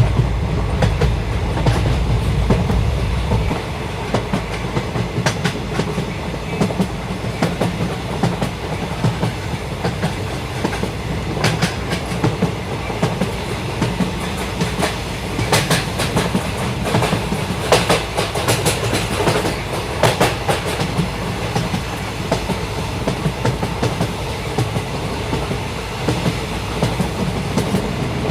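Indian Railways passenger train running along the track: a steady rumble with irregular clicks and clacks of the wheels over rail joints, heavier in the low end for the first few seconds and with a denser run of clicks in the middle.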